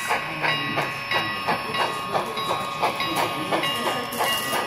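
HO scale model of Union Pacific FEF-3 4-8-4 steam locomotive No. 8444 running past with its passenger train: an even beat of about three strokes a second over a steady thin whine, with a short hiss near the end.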